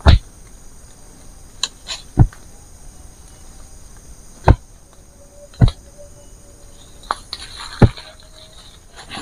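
Wooden poles rammed down by hand into forest soil: five heavy, dull thuds at uneven intervals of one to two seconds, with a few lighter knocks between them.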